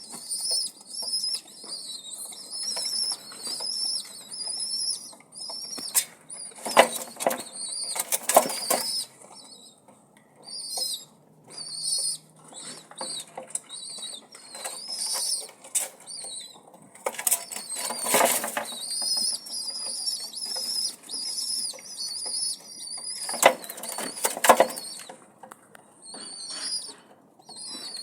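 Newborn nestling birds cheeping: shrill, wavering begging calls repeated in quick runs with short pauses, broken several times by loud rustling noises.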